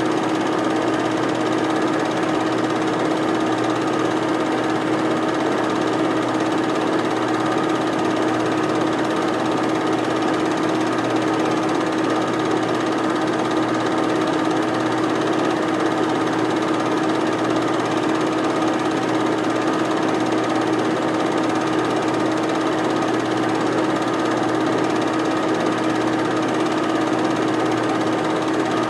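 8mm film projector running: a steady mechanical whirr and clatter with a constant hum.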